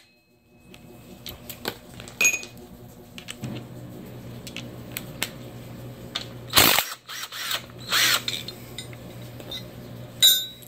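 Cordless electric ratchet running bolts out of an engine's alternator tensioner bracket. Its motor whirs steadily in two long stretches, with two loud short bursts of metal noise between them and a quick cluster of clicks near the end.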